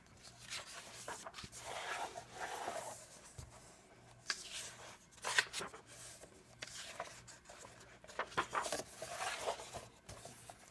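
Medium-weight pages of a glue-bound coloring book being turned by hand: a series of soft paper rustles and swishes, one for each page turned.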